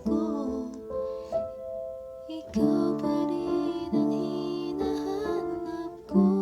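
Piano playing slow, sustained chords, with a new chord struck every second or two and left to ring.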